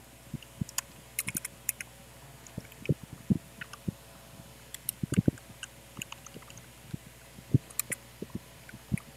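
Computer keyboard keystrokes: scattered, irregular clicks and a few soft thuds with pauses between them.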